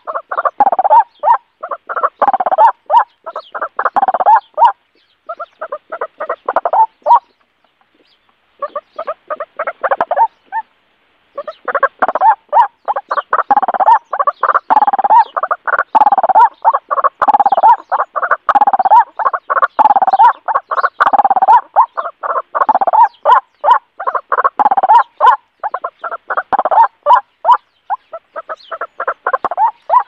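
White-breasted waterhen calling: a loud, fast run of harsh repeated notes in long bouts, with two short pauses about a third of the way in.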